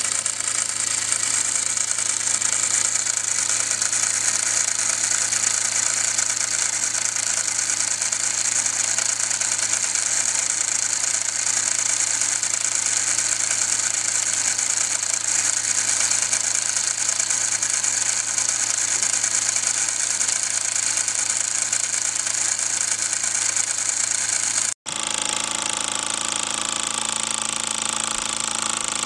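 Toy live-steam engine with a single oscillating brass cylinder running fast: a steady hiss of steam with a rapid mechanical rattle. About 25 seconds in it cuts off sharply and resumes with less hiss and a fuller running sound.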